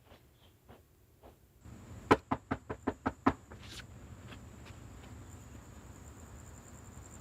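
Knocking on a door: a quick run of about seven sharp knocks, over a steady background hum with a faint high whine.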